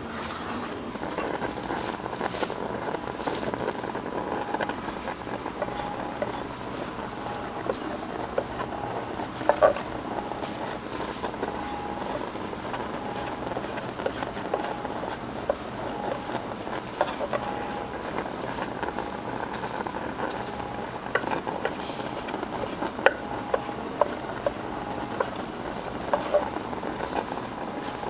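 Market stall background: a steady hubbub with scattered clicks and clatter, and a faint short beep repeating about once a second.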